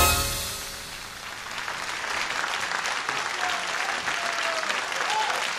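Theatre audience applauding, the clapping building up just after a piece of music fades out, with a few short calls from the crowd above it near the middle.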